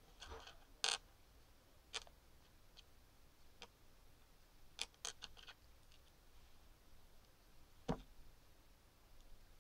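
Small plastic LEGO pieces clicking and tapping as they are handled, pressed together and set down on a wooden table: a few faint, scattered clicks, a quick cluster about halfway through and a sharper knock near the end.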